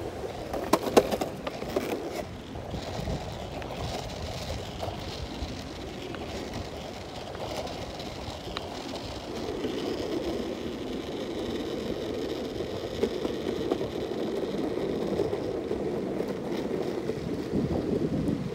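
Longboard wheels rolling over an asphalt path: a steady rumble that grows a little louder from about halfway, with a few sharp clicks about a second in.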